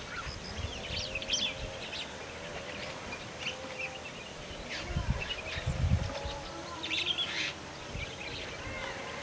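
Birds chirping and trilling in short high calls over a steady outdoor background, with a faint wavering hum underneath. Two low dull thuds come about five and six seconds in.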